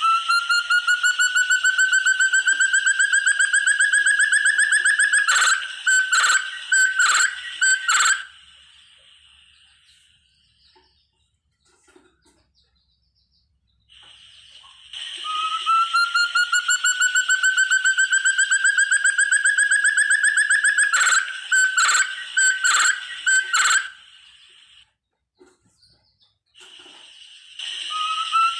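Forest partridge ('burung terung', puyuh hutan) calling: a long, rapid trill of whistled pulses that rises slowly in pitch, ending in four or five separate louder notes. The whole phrase comes again about fifteen seconds in and starts a third time near the end.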